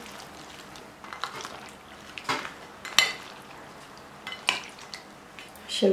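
Metal skimmer clinking against a glass bowl as dried red peppers soaking in hot water are stirred and lifted: several sharp clinks, the loudest about three seconds in.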